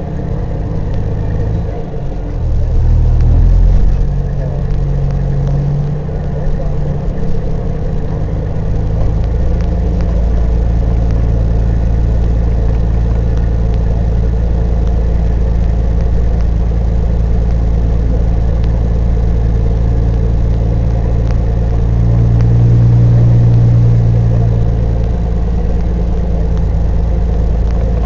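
Peterbilt 379 semi truck's diesel engine heard from inside the cab as the truck drives across the yard. The engine pitch shifts in the first few seconds, then runs steady, swelling louder for a couple of seconds about three-quarters of the way through.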